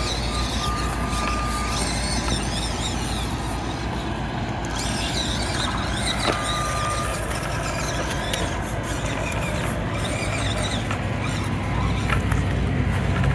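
Micro-scale RC rock crawler's small electric motor and gears whining as it crawls over the course, with short high-pitched whines twice and faint clicks.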